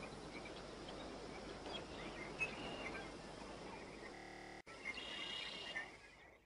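Faint tropical rainforest ambience: a steady low hiss with scattered short, high chirps of forest creatures, fading out near the end.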